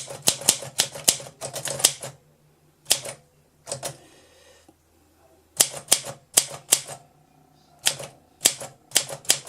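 Olympus SM4 manual typewriter being typed on: keys striking in uneven runs of clicks with short pauses between words, and a longer pause midway.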